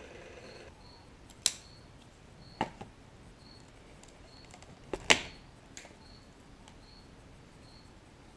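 A few sharp clicks and taps as the hunting knife's blade and handle pieces are handled on a workbench, the loudest pair about five seconds in. A faint high chirp repeats about every three-quarters of a second.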